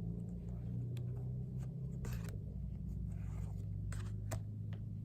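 Trading cards being handled and slid against one another, with light scraping and a few soft clicks, over a steady low hum.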